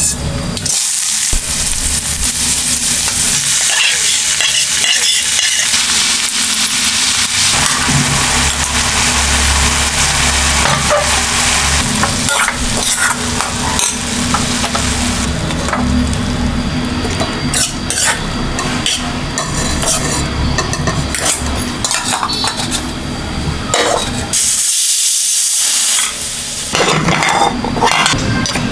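Food frying and sizzling in a pan while it is stirred, with a steady hiss and frequent metal clicks and scrapes of a utensil against the pan; the sizzle swells in the first several seconds and again briefly near the end.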